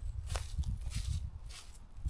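Footsteps crunching through dry fallen leaves at a walking pace, about two steps a second, over a low rumble.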